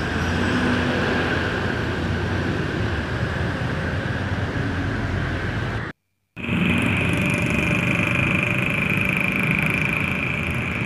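Road traffic passing: the engines of cars, buses and motorcycles make a continuous drone with a steady high whine over it. The sound cuts out completely for a moment about six seconds in, then resumes.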